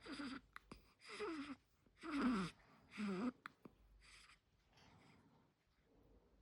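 A young baby making a run of short vocal sounds, four clear ones about a second apart, each sliding down in pitch, then two fainter ones.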